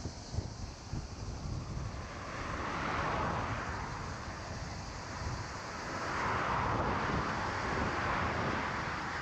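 Motor traffic passing on the highway: tyre and engine noise swells and fades, once about three seconds in and again, longer, from about six seconds, over a low rumble of wind on the microphone.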